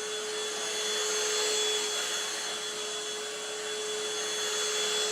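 Odumu cordless handheld mattress vacuum running as it is passed gently over a bed: a steady motor hum with a thin high whine over the rush of air.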